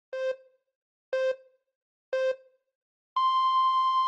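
Electronic countdown beeps: three short, lower beeps a second apart, then one long, higher beep that holds for over a second.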